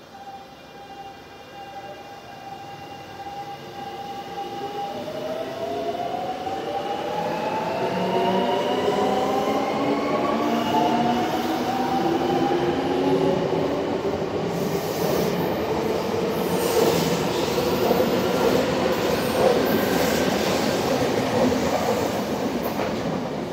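Semboku Rapid Railway 5000 series electric train pulling out and accelerating. Its traction motors' whine rises in pitch in several parallel tones, then the passing cars rumble with a rapid clatter of wheels over the rails as it gathers speed.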